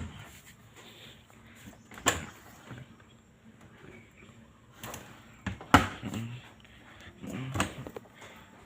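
Four sharp knocks and clunks with short gaps between them, the loudest a little past halfway, like a lid, door or panel being handled and shut.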